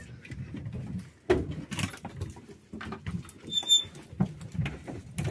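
Cloth rustling and handling knocks as camouflage gear is rummaged through close to the microphone, with a short high chirp about three and a half seconds in.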